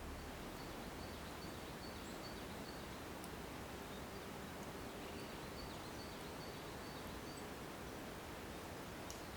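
Faint outdoor nature ambience: an even hiss with a short, high chirp repeating about two or three times a second, and a few faint clicks.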